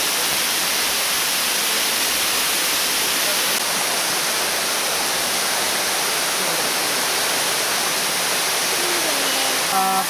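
Steady, even rush of a tall straight-drop waterfall, about 63 metres high, falling into its pool.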